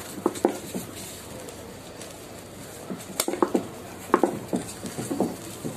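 A spatula scraping and tapping against a stainless-steel cake ring while spreading whipped cream, giving a scatter of short clinks and squeaks.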